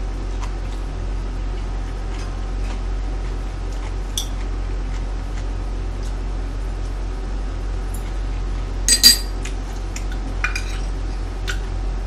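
Metal spoon and chopsticks clinking and scraping against a plate while scooping fried rice, a few scattered clicks with a louder clatter about nine seconds in, over a steady low hum.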